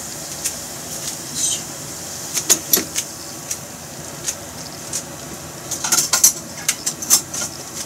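Coated chicken pieces frying in hot oil in a pan: a steady sizzle with irregular crackling pops, which come in clusters around two and a half seconds in and again around six to seven seconds in.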